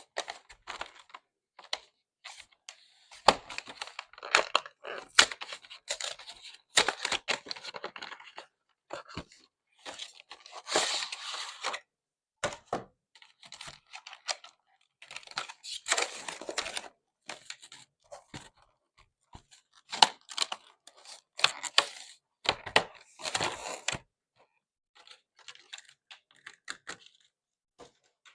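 Packaging of a Pokémon trading card collection box being torn open and handled: crinkly plastic tearing, cardboard rustles and sharp clicks in short irregular bursts, with quiet gaps between.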